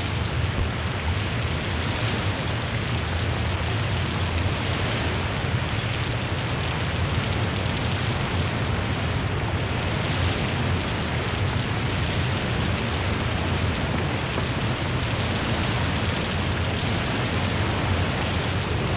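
Steady low rumble of a car ferry's engines under a constant rush of wind and breaking sea.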